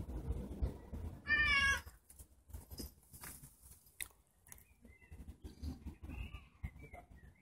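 Domestic cat giving one short, wavering meow about a second and a half in, over a low rumble on the microphone.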